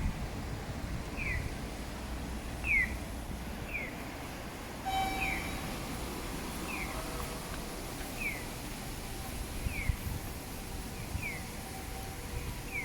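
Short falling bird-like chirps repeating at a very even pace, about one every second and a half, over a low steady rumble of street noise.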